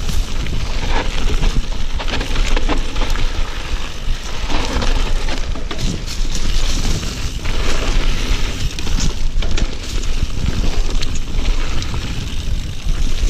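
Yeti SB6c mountain bike descending a dirt trail at speed, heard from a handlebar-mounted camera: continuous tyre noise over dirt and dry leaves, with frequent rattles and knocks from the bike and a low rumble of wind on the microphone.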